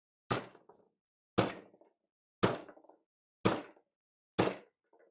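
Sledgehammer blows on a threaded metal bolt to straighten it: five sharp strikes about one a second, the threads getting marred.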